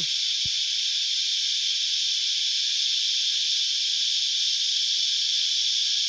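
Many cicadas droning together in a loud, steady, high-pitched buzz that does not rise, fall or pulse.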